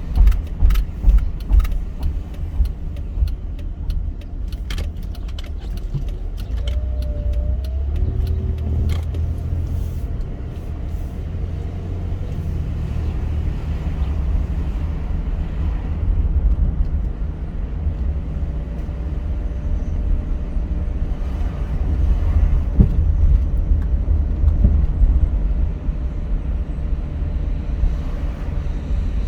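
Car driving: a steady low road-and-engine rumble, with a rapid run of clicks and knocks over the first ten seconds or so.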